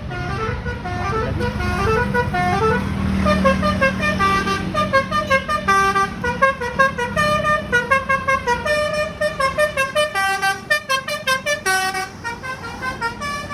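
A CS Trans bus's multi-tone 'telolet' horn playing a melody of stepped notes, which turns into a quick run of short toots about two-thirds of the way in and eases off near the end. The bus's engine hums low underneath.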